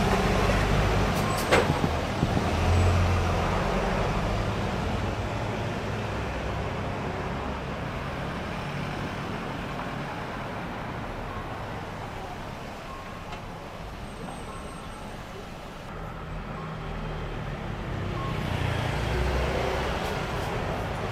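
Traffic on a narrow street: vehicles pass close by at the start, with a few sharp clicks about two seconds in. After a quieter stretch, a city bus draws near and its engine grows louder toward the end.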